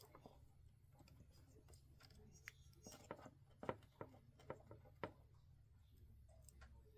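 Faint handling noises of small-wire electrical work on a switch: a handful of short, sharp clicks and taps, clustered around the middle, over a low hum.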